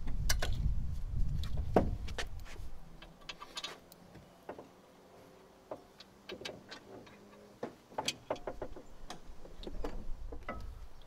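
Scattered light metallic clicks and knocks as the front strut's top-mount bolts are started by hand from above while the strut and coil spring assembly is held up into the suspension tower from below. A low rumble runs through the first two seconds.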